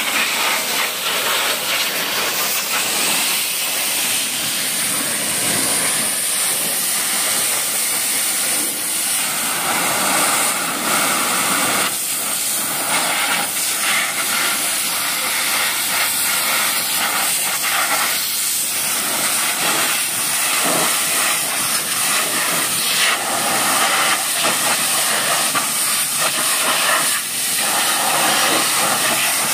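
High-pressure water jet from a pressure-washer lance hissing steadily against a car's wheel, plastic hubcap and tyre, wavering as the spray is moved over them.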